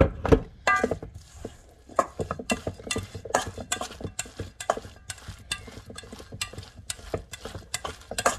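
A hand kneading and squeezing a wet mushroom, flour and water mixture in a stainless steel bowl: rhythmic squelching, about two to three squeezes a second, with a louder knock right at the start.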